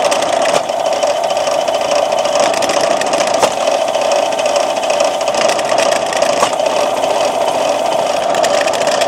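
Cheap budget belt grinder with plastic rollers, running unloaded: a steady motor hum with belt noise, the machine shaking and rattling as it runs.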